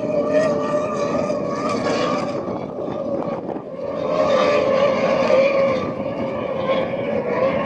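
Racing powerboat engines running at high revs as the boats pass at speed, a steady high engine drone that wavers in pitch. It dips briefly about halfway through and swells again.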